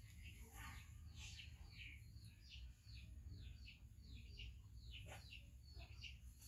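Faint chirping of small birds: many short, high notes sliding downward in quick succession, over a low steady hum.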